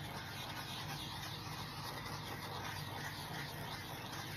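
Steady background hiss with a faint low hum, room tone with no distinct events.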